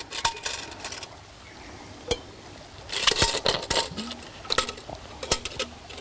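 Plastic clicks and clacks of a hand-pump water filter being fitted and screwed onto the top of a NATO water bottle. The sharp knocks come scattered, with a busy cluster about three seconds in.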